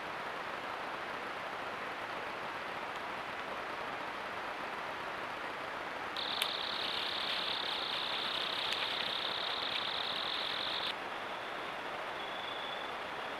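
Steady hiss of a trail camera's microphone with an insect trilling: a loud, continuous high-pitched trill starts about halfway through and cuts off suddenly, followed by a fainter trill near the end.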